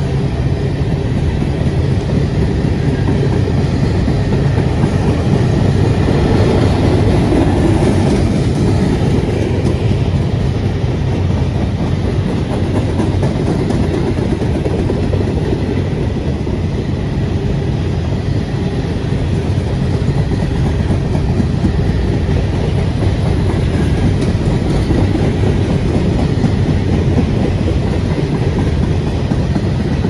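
Freight train cars (covered hoppers, then tank cars) rolling past close by: a steady rumble of steel wheels on rail.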